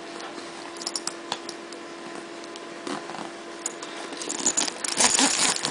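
Small clicks and rattles of gear being handled in a bag, then a zipper on a bag pocket pulled open near the end.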